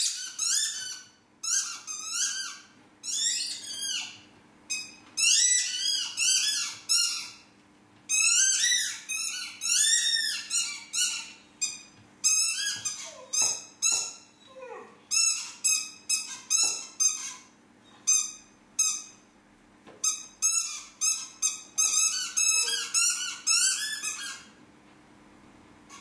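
A squeaky dog toy squeaked over and over as a Labrador-cross dog chews it. The squeaks are high-pitched and come in quick runs with short pauses between, stopping near the end.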